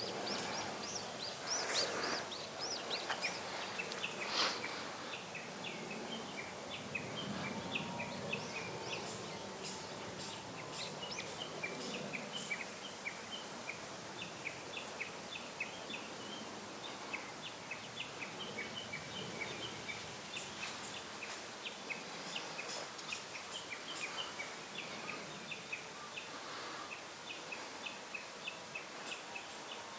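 Birds chirping in a steady outdoor background, short calls repeating throughout, with a couple of brief knocks in the first few seconds.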